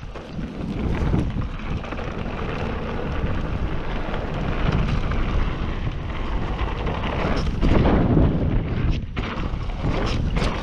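Wind buffeting the camera microphone as a mountain bike rolls down a dirt and gravel trail, with the tyres rumbling over the ground and a few sharp knocks from bumps near the end.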